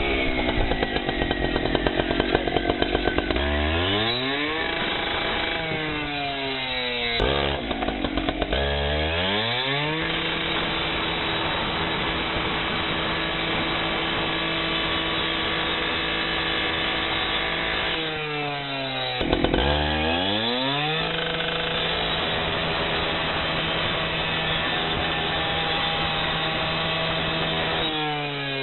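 Two-stroke gas rescue cut-off saw running at high throttle while its Extractor blade cuts through hurricane window glass. There is a rapid chatter in the first few seconds. The engine briefly drops off and revs back up about 4, 8 and 19 seconds in.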